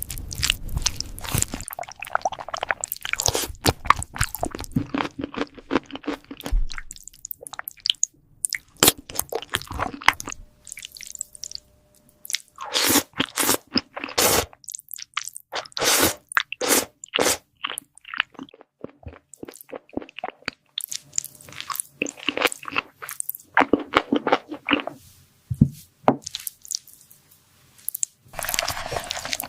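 A cat chewing crunchy food close to the microphone: runs of sharp crunches lasting a few seconds, with short pauses between them.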